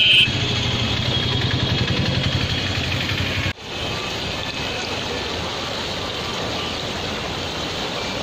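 A low, pulsing engine-like rumble for the first few seconds. After a sudden cut, a swollen, muddy river rushes steadily past in flood.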